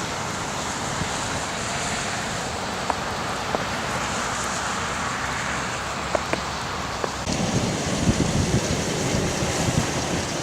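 Snowstorm wind blowing in a steady rush, with gusts buffeting the microphone from about seven seconds in.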